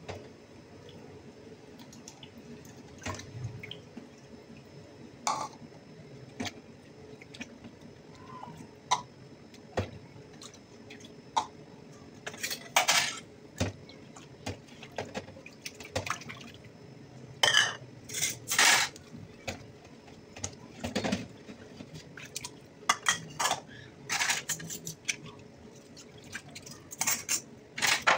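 Soapy dishes being rinsed by hand in a basin of clean water in a stainless steel sink: water splashing and dripping, with clinks and clatters of the dishes being handled and set down. The clatter is sparse at first and grows more frequent and louder about halfway through.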